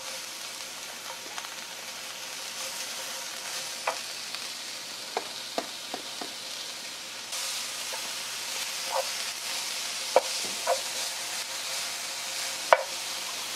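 Blanched shredded dried squid sizzling in olive oil with garlic in a frying pan, stirred with a wooden spatula, with a few sharp knocks against the pan. The sizzle gets louder about halfway through.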